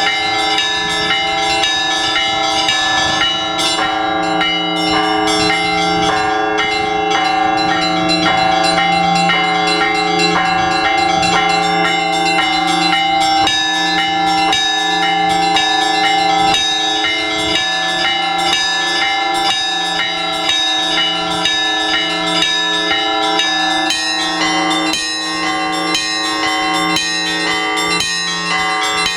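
Russian Orthodox church bells rung by a bell-ringer, calling to the all-night vigil: small bells struck in a quick, steady rhythm over the sustained ringing of larger bells.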